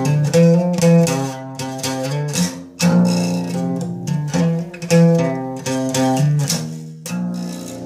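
Acoustic guitar played with the fingers, a run of chords struck steadily, then a last chord about seven seconds in left to ring out.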